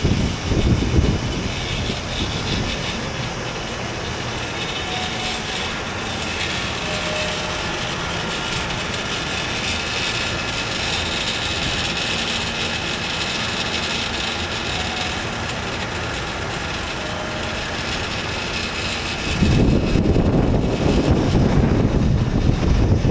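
Steady outdoor background noise with a high hiss. Wind buffets the microphone with low rumbling gusts at the very start and again near the end.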